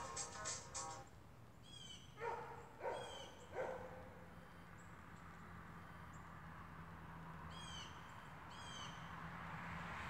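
Three short animal calls about two to four seconds in, with birds chirping in quick, high, falling notes a few times; a low steady hum runs through the second half.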